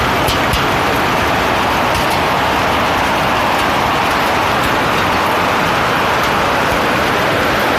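Heavy hail falling: a loud, dense, steady noise of stones coming down, with sharper clicks of single hailstones striking through it.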